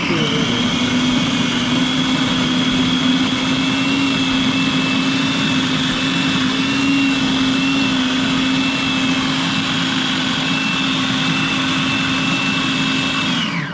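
Electric food processor running continuously, a steady motor hum with a high whine, pureeing smoked kingfish and sour cream into dip. Near the end it is switched off and the motor winds down with falling pitch.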